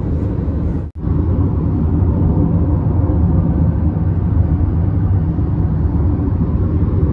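Steady low road and engine rumble heard inside a moving car's cabin at highway speed, with a brief dropout about a second in.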